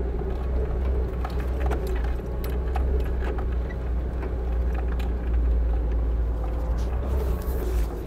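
Cabin sound of a new three-door Lada Niva creeping along a bumpy dirt forest track in low range: a steady low engine and drivetrain drone, with scattered knocks and rattles as it rolls over the bumps and ruts. The stock factory transfer case and low range are running quietly.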